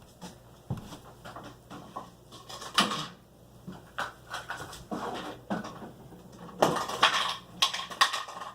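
Irregular plastic clicks and knocks from a cocked Nerf Rival blaster being handled, with louder clattering about three seconds in and again around seven seconds in.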